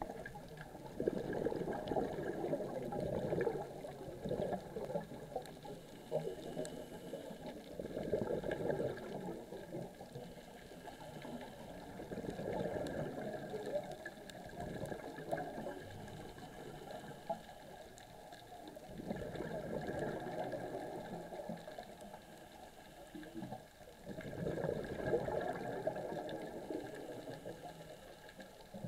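Heard underwater: a diver's exhaled breath bubbling away in crackly surges about every five or six seconds, with quieter spells between breaths.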